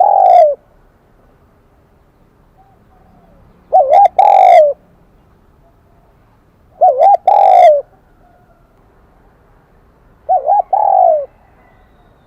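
Spotted dove cooing in the high, ringing 'kim đồng' voice. Each phrase is two short notes and a longer falling note, repeated about every three seconds.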